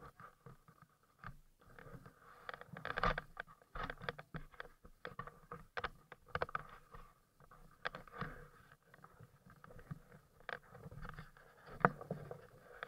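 Specialized mountain bike rolling down a dirt forest trail: irregular clicks, knocks and rattles of the bike jolting over stones and roots, over a faint hiss of tyres and air. The sharpest knocks come about three seconds in and near the end.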